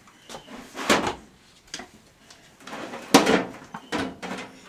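Pans knocking and clattering in a stove's bottom storage drawer as a baby rummages through them: a handful of separate knocks, the loudest about a second in and about three seconds in.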